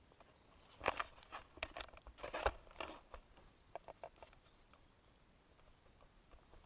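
Footsteps on a wet, muddy trail, a quick run of steps in the first three seconds, then a few lighter ones around four seconds in.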